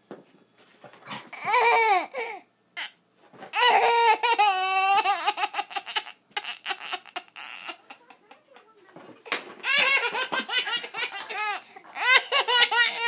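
A baby laughing hard in four bouts, each a run of quick pitched pulses, with short quiet pauses between.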